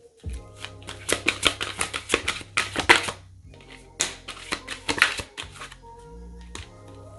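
A deck of tarot cards being shuffled by hand, with two runs of rapid snapping card clicks, then cards set down on the table. Soft background music with held low notes plays underneath.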